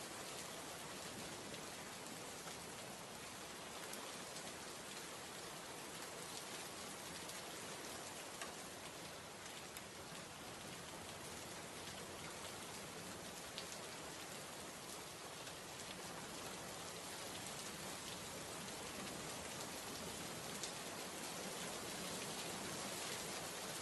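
Heavy rain falling steadily on a hard surface: a dense, even hiss of drops, with a few single louder drop hits standing out now and then.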